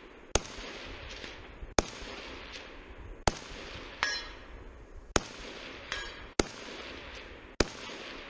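Six rifle shots from a semi-automatic .308 Winchester rifle, fired one at a time about one and a half seconds apart, each a sharp crack with a short echo trailing off. A brief high ringing sounds twice between shots.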